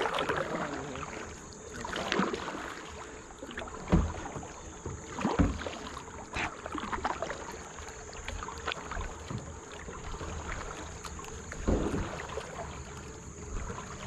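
Kayak paddle strokes: the blades dip and swish through the water every second or two at an uneven pace, with a couple of heavier thuds about four and five seconds in.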